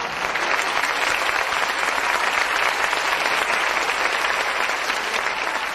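Theatre audience applauding, a dense, steady clapping that takes over as the music stops.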